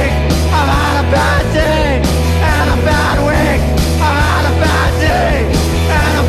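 Garage psych rock recording playing at a steady loud level: full band with bass, drums and cymbals, with a pitched lead line bending up and down over it.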